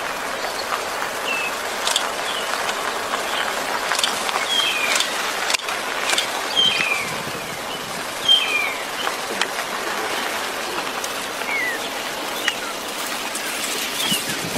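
Birds calling with short, falling chirps, repeated about once a second, over a steady outdoor hiss, with a few faint clicks.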